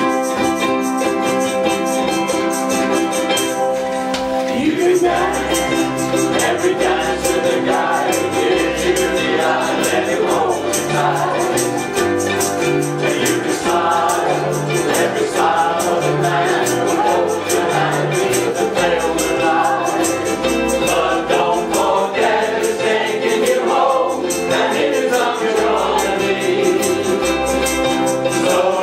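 Ukulele band strumming in quick, even strokes over a walking bass line. Held chords open the passage, and a group of voices comes in singing together about four to five seconds in.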